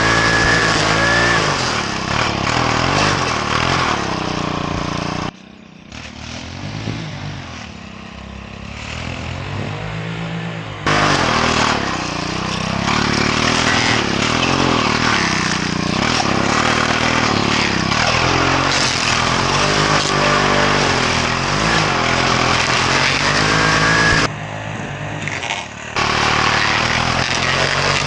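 Small gasoline engine of lawn-care equipment running hard, its pitch wavering up and down as the load changes. The sound drops abruptly to a much lower level twice, for about five seconds the first time and two seconds the second, then comes back at full strength.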